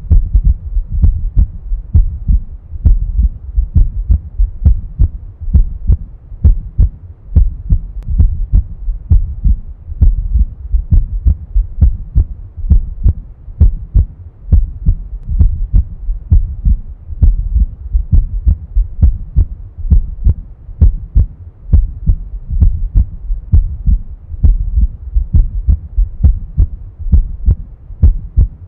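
Human heart sounds, the first and second heart sounds (S1 and S2): low, dull paired thumps repeating in a steady rhythm.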